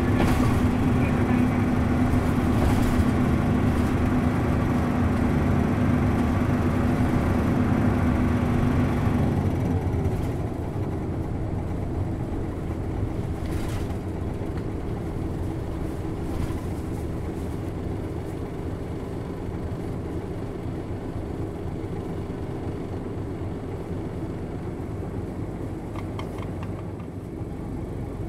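Hino Blue Ribbon bus's M10U diesel engine heard from inside the passenger cabin, pulling loudly with a heavy howl. About ten seconds in the engine note drops, and it runs on steadily and more quietly.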